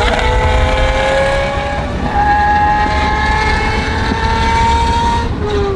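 Lamborghini Aventador SVJ's V12 with a Gintani F1 exhaust running hard, its note climbing slowly in pitch, then dropping sharply near the end. A heavy low rumble lies under it throughout.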